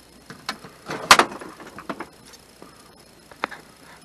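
Small parts being handled and rummaged through in a box: a few scattered clicks and knocks, the loudest about a second in.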